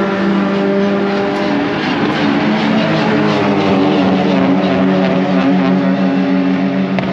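Touring race car engines holding a steady droning note in the pit lane, the pitch wavering slightly in the middle.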